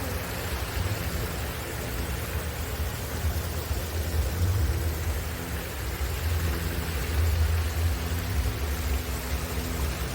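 Wind buffeting the microphone: a low rumble that swells in gusts, with a steady hiss over it.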